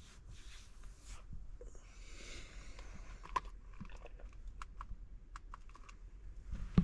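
Faint handling noises: scattered small clicks and a stretch of crinkling rustle over a steady low rumble.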